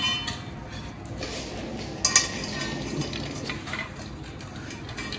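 Dogs eating dog biscuits from stainless steel bowls: the metal bowls clink and knock as they are nosed against the ground, with one sharp, louder clank about two seconds in.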